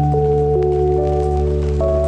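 Ambient background music with sustained organ-like chords over a steady low bass. The upper notes step to new pitches every half second or so.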